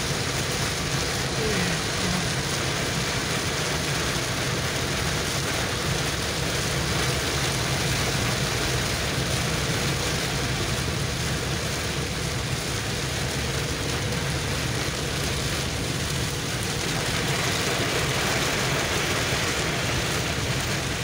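Heavy rain falling on a car's windshield and body, heard from inside the car, over a steady hiss of road and engine noise.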